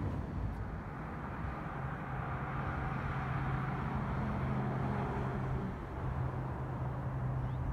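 A vehicle engine running at a steady low hum, over even outdoor noise.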